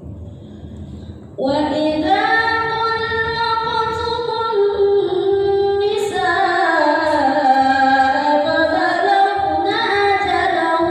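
Young woman reciting the Quran in a melodic, drawn-out chant, holding long notes that glide up and down in pitch. Her voice enters about a second and a half in, with short pauses for breath near the middle and near the end.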